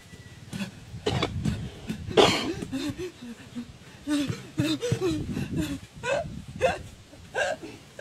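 A person's voice making wordless, breathy vocal sounds: gasps, coughs and short strained cries and grunts in irregular bursts, the loudest a breathy gasp a little after two seconds in.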